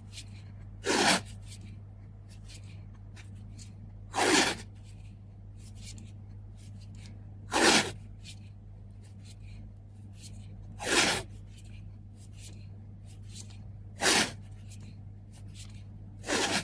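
Short noise bursts at an even pace, about one every three seconds, over a steady low hum.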